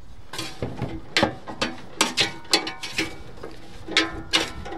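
Spatula stirring raw French fries in an air fryer basket: irregular knocks and scrapes against the basket, a few a second, with the fries rustling and clattering.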